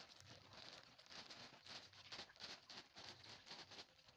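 Faint, irregular patter of small splashes as the water surface is disturbed.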